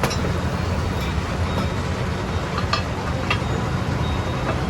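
Steady low rumble of road traffic, with a few light clinks around the middle.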